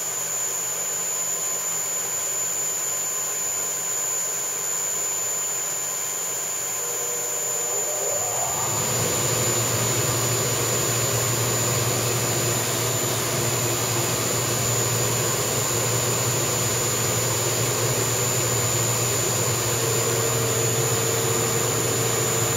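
CNC mill spindle driving a tapping head with an M5 roll tap through a tapping cycle: a steady machine running noise with a thin high whine. About nine seconds in it gets louder, with a stronger low hum, and holds there.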